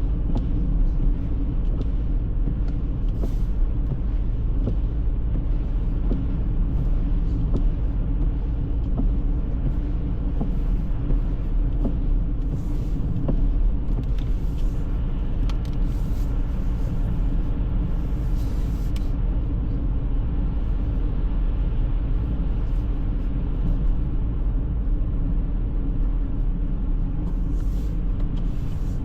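Car driving through heavy snowfall: a steady low rumble of engine and road noise that holds even throughout.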